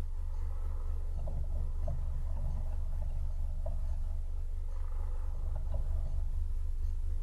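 A steady low hum, with faint irregular scratching and clicking from a fox digging in soil.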